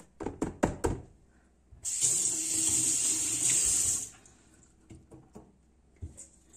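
A handful of quick knocks, then a water tap runs into a sink for about two seconds, a steady hiss that starts and stops abruptly.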